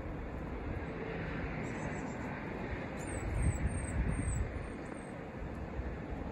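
Steady low outdoor rumble with a light hiss underneath. About halfway through, a small bird gives a quick run of five or six thin, very high, falling chirps.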